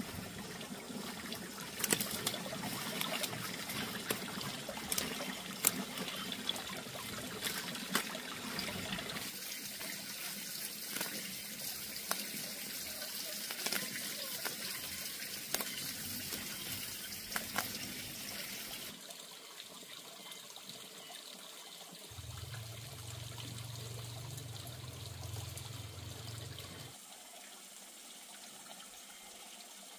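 Close rustling and crackling of weeds being pulled by hand from a bed of dry rice-husk mulch, with many small snaps and clicks over a steady hiss, for the first two-thirds. After that it is quieter, and a low hum runs for about five seconds near the end.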